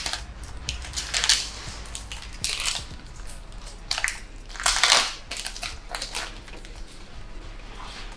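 Foil wrapper of a Pokémon card booster pack being torn open and crinkled in a series of short rustling bursts, the loudest about five seconds in.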